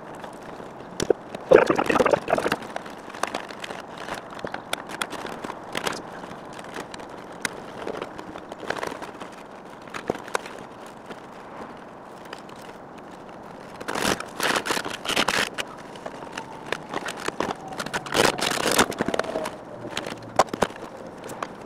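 Plastic console trim around a Lexus SC's automatic shifter being pried and worked loose by hand and screwdriver: scattered clicks, scrapes and rattles of hard plastic. There are louder bursts of rattling near the start and twice more in the last third.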